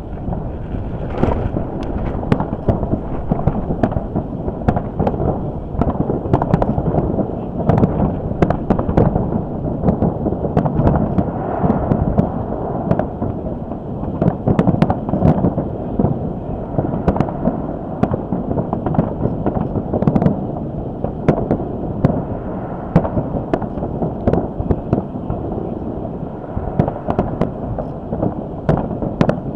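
New Year's fireworks display going off in a dense barrage: continuous rumbling booms with many sharp cracks and pops throughout, and cold wind buffeting the microphone.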